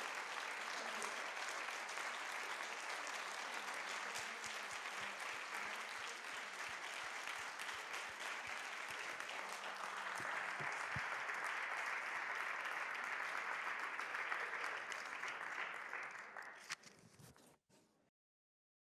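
Audience applauding steadily, swelling a little about halfway through, then fading out and cutting to silence near the end.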